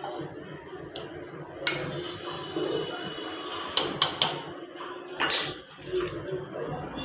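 Steel ladle clinking against a pressure cooker while stirring curry, then the cooker's metal lid clanking as it is fitted and closed. Several sharp clinks, a quick cluster about four seconds in and a longer clank just after five seconds.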